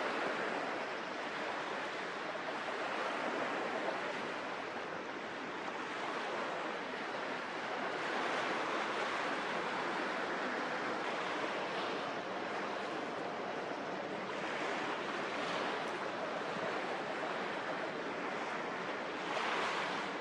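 Steady rushing outdoor harbour ambience of wind and water, swelling slightly now and then and briefly louder just before the end.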